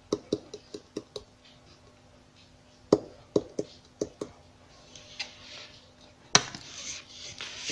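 Plastic jar of gold glitter tapped and shaken to pour glitter into a paper shaker card: a run of light clicks and taps, then a soft hissing rustle of glitter near the end.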